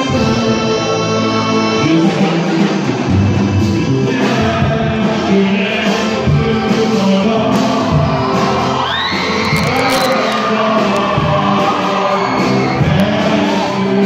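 Male vocal group singing together into handheld microphones, with a high voice sliding upward above the group about nine seconds in.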